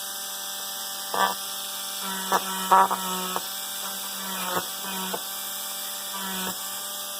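Small motor-driven copper wire wheel running against a phosphor bronze nut to polish off oxidation. The motor's whine dips and recovers in pitch as the wheel bears on the part, and there are several short scrapes as the bristles catch the metal.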